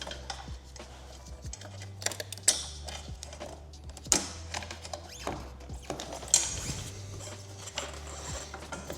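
Background music with a low bass line changing note every second or two, over scattered sharp clicks and knocks from hand work on an e-bike wheel and tire, the loudest about two and a half, four and six seconds in.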